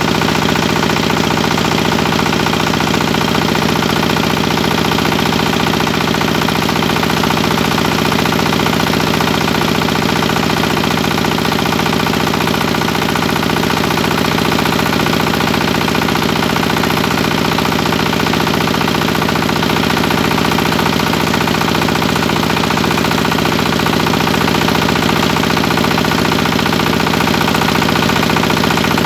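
A small belt-driven rice hulling mill running steadily while it mills paddy fed from its hopper.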